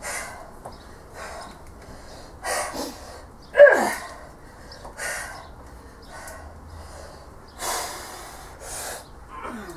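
A woman straining hard, with forceful breaths and grunts about once a second; the loudest is a grunt falling in pitch about three and a half seconds in. It is the effort of bending a Grade 5 steel bolt back and forth by hand to fatigue it until it snaps.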